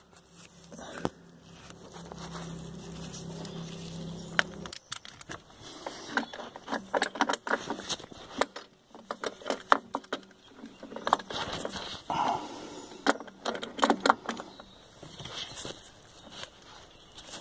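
Irregular metallic clinks and rattles of hands and tools working in the engine bay around the oil filter housing. A steady low hum runs for the first four seconds or so and then cuts off.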